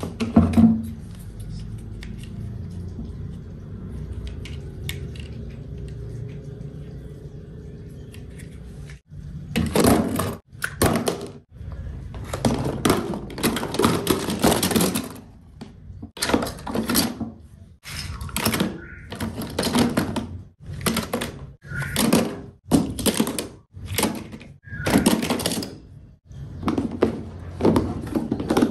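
A knock just after the start, then, after about nine seconds of low rumble, plastic toy cars and trucks clattering into a clear plastic storage box in a run of rattling bursts about a second apart.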